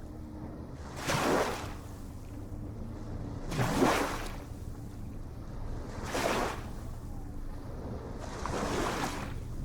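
Ocean waves breaking, with four rushing surges about two and a half seconds apart over a steady low rumble; the loudest comes about four seconds in.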